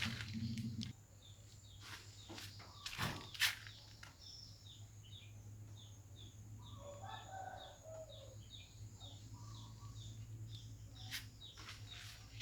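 Birds chirping in a quick, even series, with a lower call about seven seconds in, over a steady low hum; two sharp knocks come about three seconds in.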